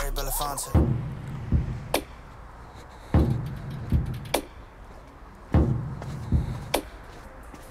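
A sparse, slow drum beat: two deep kick-drum thumps followed by a sharp snare or clap hit, the pattern repeating about every two and a half seconds. It starts just under a second in, as the sung music before it cuts off.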